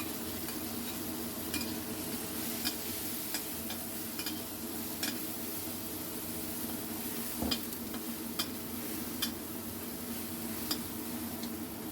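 Food sizzling in a hot pan while being stir-fried, with a spatula clicking and scraping against the pan at irregular intervals.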